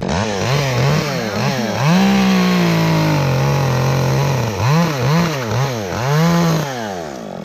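Chainsaw revving up and down, held at speed for about two seconds, then blipped several times in quick succession before dropping back lower near the end.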